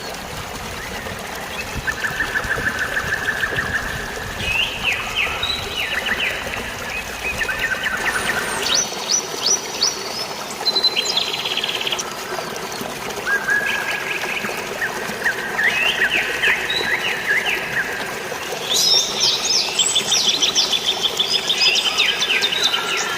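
Several songbirds chirping and trilling in quick runs of repeated notes over a steady wash of flowing water.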